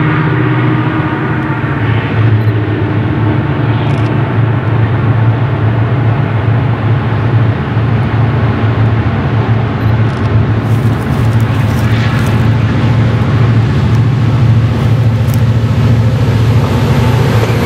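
Several diesel locomotives pulling the Chepe passenger train, their engines running under power in a steady, deep drone as the train approaches.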